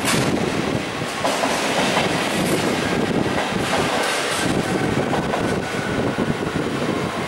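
NS Sprinter electric train running along the tracks: a steady rolling rumble with scattered clicks of the wheels passing over rail joints and points.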